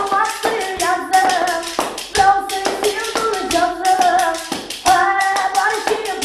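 A boy singing a manele tune unaccompanied, holding long wavering notes, while keeping a quick, even beat with hand claps.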